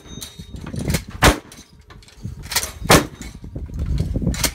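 Three gunshots in a cowboy action shooting stage: one about a second in, then two in quick succession near the middle.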